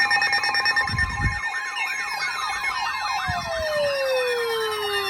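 Several sirens sounding together over steady alarm tones: a fast yelping siren wails up and down about four times a second, while other siren tones slide steadily down in pitch as they wind down. Two short low thumps come about a second in and again after three seconds.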